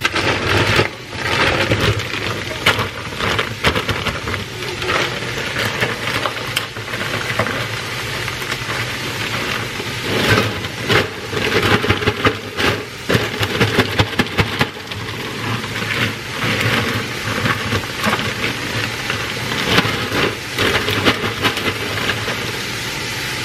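Plastic crinkling and rustling as food is tipped out of a plastic bag into a slow cooker lined with a plastic liner, a dense run of crackles and rattles.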